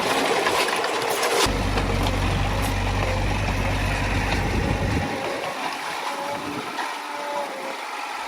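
Diesel engine of a Komatsu D20A crawler bulldozer running steadily, with a sharp clank about a second and a half in.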